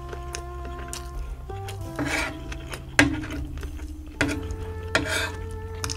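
Background music with held notes, over a spoon scraping and clinking against a tray as fried rice is scooped up, with two sharp clinks about three and five seconds in.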